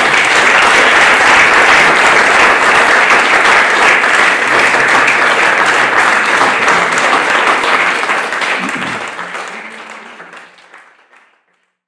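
Audience applauding, the clapping steady and then fading out over the last few seconds.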